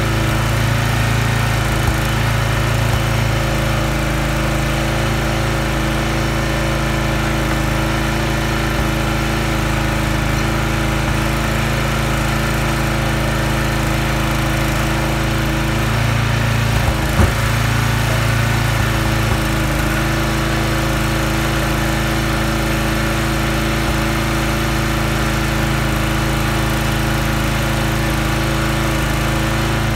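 Huskee log splitter's small gas engine running steadily, its note changing briefly about halfway through. A single sharp crack sounds near the middle.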